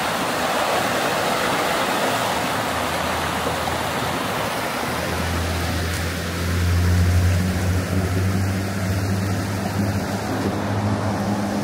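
Mountain stream rushing over rocks. About five seconds in, a steady low motor hum joins it and soon becomes the loudest sound.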